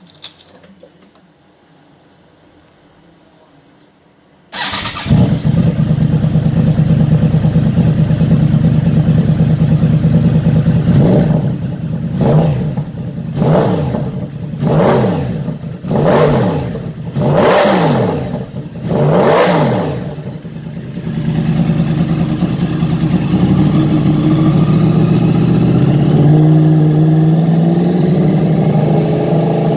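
Yamaha YZF-R1 inline-four through an aftermarket TOCE exhaust, started about four and a half seconds in and idling. It is then revved in a string of about eight quick throttle blips, each rising and falling in pitch. After that it runs steadily at idle.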